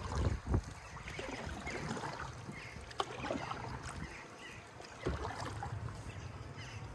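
Open canoe under way on a river: paddle strokes and water splashing and lapping against the hull in small, irregular splashes, over a low steady rumble.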